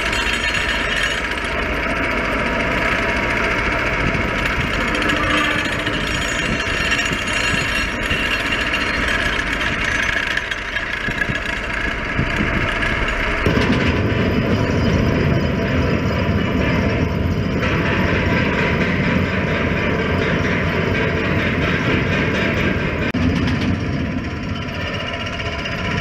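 Hydraulic vibratory pile hammer running without a break as it drives a steel pile into solid coral, a dense, fast buzzing hammering. It grows deeper and louder from about halfway through.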